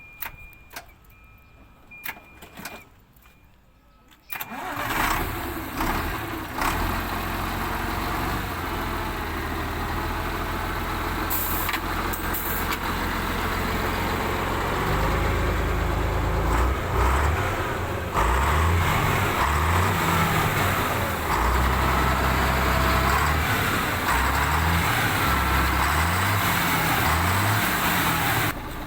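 A few light clicks, then the Volvo FL10 truck's diesel engine starts about four seconds in and keeps running after its fuel filter change. In the second half the revs are raised and dropped again and again.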